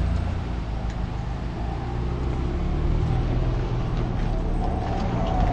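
A vehicle's engine running with a steady low drone.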